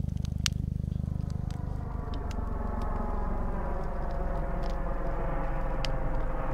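Helicopter flying over, its rotor beat and engine tones growing louder as it comes nearer.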